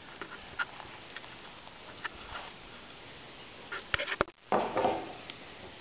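Light, scattered clicks and taps of a knife and hands working a northern pike fillet while the Y-bones are cut out. About four seconds in there is a quick cluster of sharper clicks, followed by a brief rustling noise.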